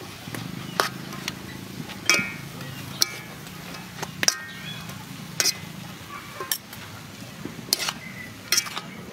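Metal spatula striking and scraping a metal wok while stir-frying noodles: sharp clinks, some with a brief metallic ring, at an uneven pace of about one a second.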